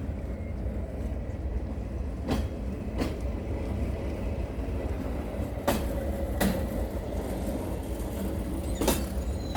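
Rail bike rolling along its steel track: a steady low rumble with sharp clacks as the wheels cross rail joints, mostly in pairs about a second apart.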